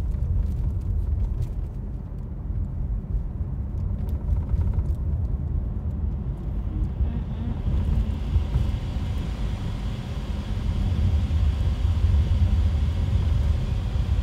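Steady low rumble of a moving vehicle heard from inside the cabin, with road hiss growing louder about halfway through.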